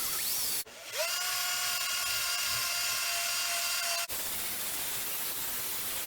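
A small high-speed power tool spins up with a short rising whine, then runs at a steady high pitch for about three seconds and stops abruptly. A steady hiss comes before and after it.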